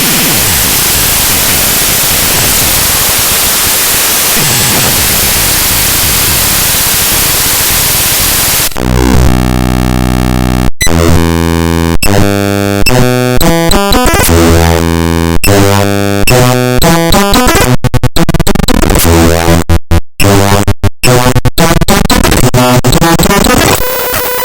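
Raw bytes of the Windows File Explorer program file played straight out as audio. For the first eight or nine seconds it is a loud, even hiss of static. Then come harsh buzzing tones in blocks that change pitch abruptly, broken near the end by several sudden brief cut-outs.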